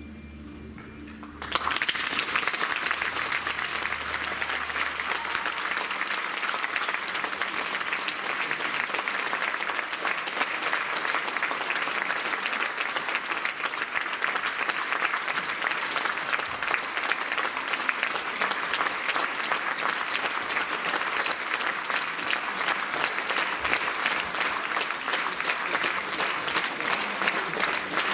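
The last notes of the percussion piece die away, leaving a fading low ring. About a second and a half in, audience applause breaks out suddenly and carries on steadily as dense clapping.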